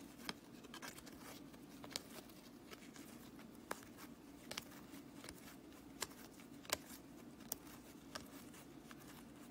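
Trading cards being flipped through by hand, one by one: faint, irregular soft clicks and slides of card stock against card stock, over a low steady hum.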